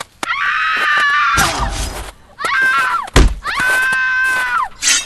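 Three high-pitched screams, each about a second long and dropping in pitch as it ends, with two heavy thuds between them.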